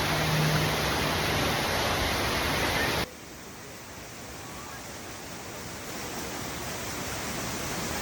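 Loud, steady rush of falling water from a waterfall. It cuts off abruptly about three seconds in to a quieter, more distant water rush. A low steady hum runs under it for the first second and a half.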